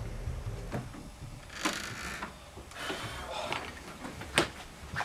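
Scattered scuffs and knocks of people moving through a doorway, with a sharp click about four seconds in and a heavier thud at the very end.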